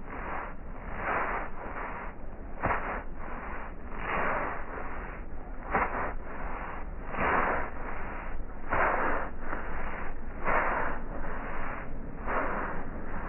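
Toothbrush bristles scrubbing foamed cleaner into the fabric of a car door panel, a swishing stroke repeating about every second and a half.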